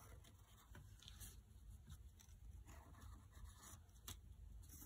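Faint scratching of a pencil tracing around the edge of a letter stencil on drawing paper.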